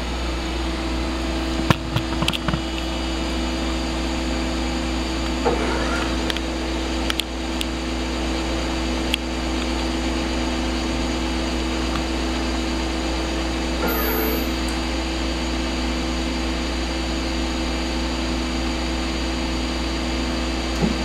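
Large CNC horizontal machining center powered up and idling: a steady machine hum with a few light clicks.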